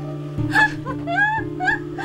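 Background music with steady sustained low notes. Over it a person makes short wordless vocal sounds that glide up and down in pitch.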